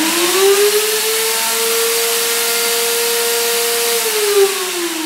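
DNA Super Blender's 1,500-watt, 3-horsepower motor running with an empty jug: a whine that rises as it spins up, holds steady, then falls about four seconds in as it is switched off and winds down. It starts up smoothly.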